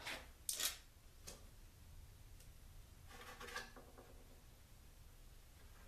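Faint clicks and taps of fingers handling small self-adhesive Velcro discs and pressing them into drilled holes in a wooden board. A brief rustle comes about three seconds in.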